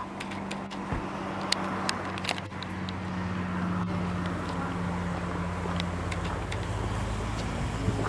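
A motor vehicle's engine running steadily, its low hum growing louder about halfway through, over a steady rushing background, with a few scattered sharp clicks.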